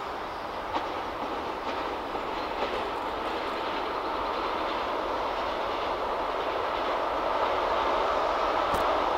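Electric train approaching on the line: a steady rumble of wheels on rails that grows slowly louder, with a few faint wheel clicks over rail joints.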